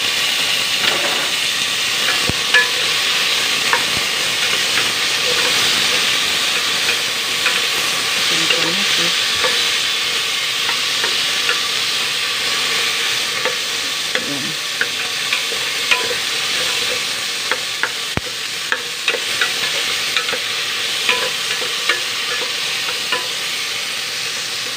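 Chopped onion, garlic and tomatoes sizzling steadily as they sauté in a hot aluminium pot. A wooden spatula stirs through them, with small scattered clicks and scrapes against the pot.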